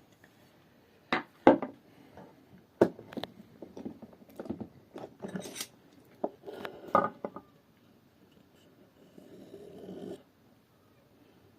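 Wooden pieces knocking and clacking against each other a dozen or so times, irregularly, then a soft rubbing sound near the end.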